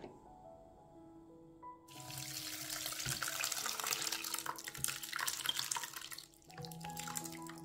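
Liquid running or splashing, starting abruptly about two seconds in and stopping about six seconds in, over soft background music.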